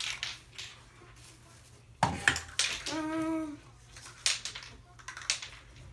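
A sharp thump and scattered light knocks as a metal-framed shelf unit is handled and set down, with a short hummed voice sound in the middle.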